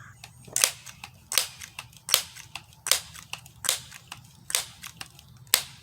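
A Crosman 1377 pump air pistol being pumped: seven sharp clacks of the pump lever, a little under a second apart, with softer clicks between them, charging the gun for a seven-pump shot.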